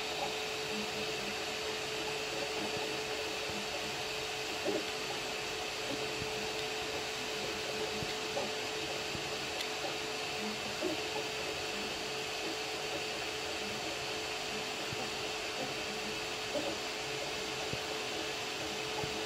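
Anycubic Kobra Max 3D printer running a print: a steady whir from its cooling fans with a steady hum, and faint short chirps from the motors now and then as the print head moves.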